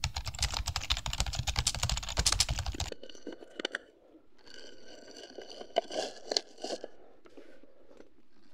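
Dense, rapid mechanical clicking for about three seconds. After that comes lighter, scattered clicking over a faint steady high tone, which fades about a second before the end.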